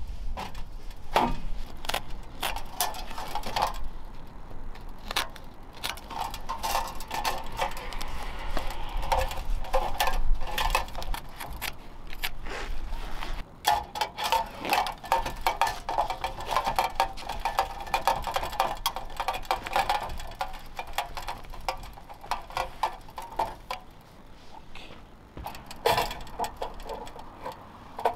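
Light metallic clicks, clinks and rattles of thin sheet-metal wood-stove parts being handled and fitted together: the chimney pipe and wire-mesh guard. Wind rumbles on the microphone through the first half.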